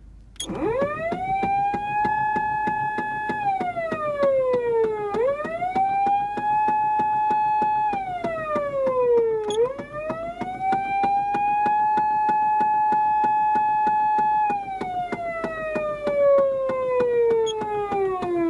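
Electronic police-car siren from a Patlite SAP500BK siren amplifier sounding through a 50 W Osaka Siren driver unit. It switches on about half a second in, then runs the wail three times: a quick rise to a held high tone, then a fall. The last fall is long and slow and runs on past the end.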